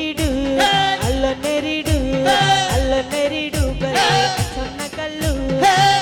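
Live Indian film-song band playing: a singer's voice carries the melody over keyboards, with a steady beat of deep drum thuds about twice a second.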